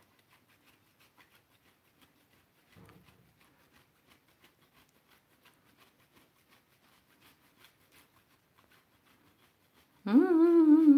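Faint, quick scraping strokes of a block of hard grana cheese rubbed over a flat stainless hand grater. About ten seconds in, a woman starts humming a tune loudly.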